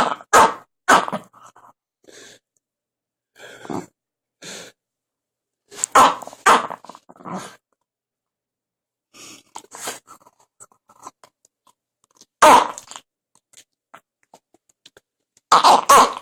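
A Jack Russell Terrier making strange, short noisy bursts at irregular intervals, with quiet gaps between them. The loudest bursts come about six seconds in, around twelve and a half seconds in, and near the end.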